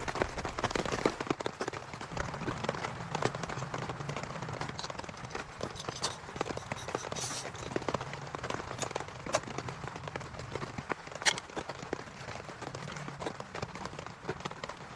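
Heavy rain falling, the drops striking a surface close by as a dense, irregular run of sharp taps.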